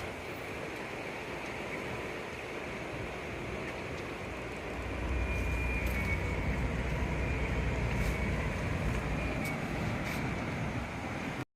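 Iris Ohyama IHR-5604G air conditioner outdoor unit running, a steady whir with a low hum that grows louder about five seconds in and eases off near the end.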